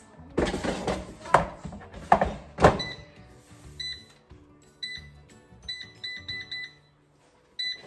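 Power XL Vortex air fryer: the basket scrapes as it slides in and knocks shut with a few sharp clunks, then the touch control panel beeps with short single beeps and a quick run of beeps as the buttons are pressed to set the temperature and time.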